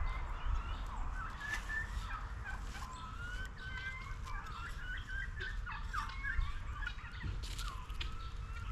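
Several birds chirping with many short, scattered call notes, over a steady low rumble.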